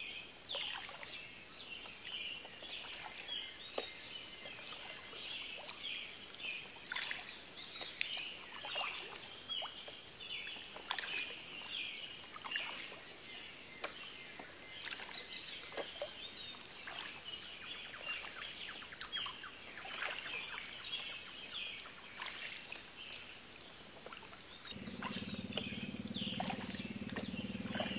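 Tropical outdoor ambience: many short bird chirps and calls over a steady high insect drone. A low steady hum joins near the end.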